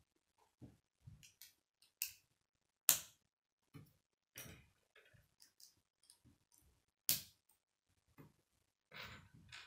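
K'nex plastic rods and connectors being handled and snapped into place: a series of sharp plastic clicks and snaps, the loudest about three seconds in and again about seven seconds in, with quieter handling clicks between them.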